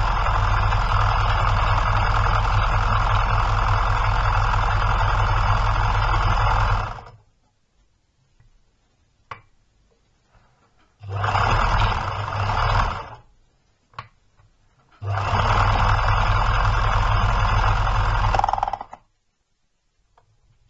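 Łucznik KL.441 electric sewing machine running at speed while stitching a zigzag seam, in three runs: a long one of about seven seconds, a short burst of about two seconds, and one of about four seconds, with single clicks in the pauses between. The last run ends with the needle broken.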